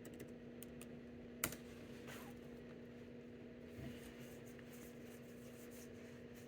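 Faint room tone: a steady low electrical hum with a few scattered light clicks, one sharper click about a second and a half in.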